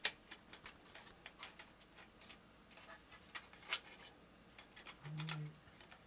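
Light plastic clicks and taps as a blower fan is pressed back into a mini PC's chassis, with a sharp click at the start and another about two thirds of the way through.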